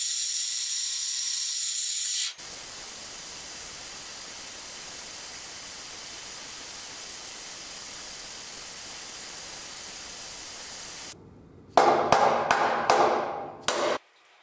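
Milling machine running with a steady hiss as the end mill cuts the aluminium gear, broken by an edit about two seconds in. Near the end comes a quick run of loud metallic clinks and rattles as the aluminium gear and parts are handled in the band saw's worm gearbox.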